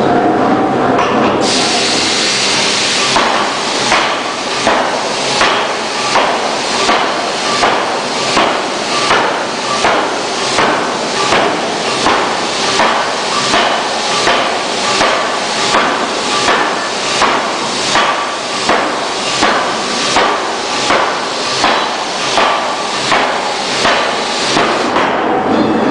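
C41-2000kg pneumatic forging hammer striking a red-hot steel flange ring on its anvil in a steady run of heavy blows, about one every 0.8 seconds, over the machine's continuous running noise. A burst of hiss comes about two seconds in, just before the blows begin, and the blows stop near the end.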